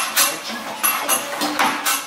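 MWM single-cylinder stationary diesel engine turning its large flywheel, giving a series of sharp, hissing clatters, somewhat irregular, about three a second.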